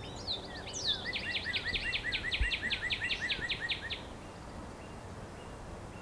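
A bird singing a fast run of about sixteen repeated chirping notes, starting about a second in and stopping about four seconds in, over faint outdoor ambience.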